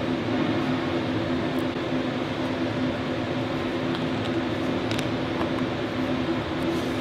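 Steady workshop machine hum with two low held tones, and a few faint light clicks of small metal tool holders and cutter inserts being handled.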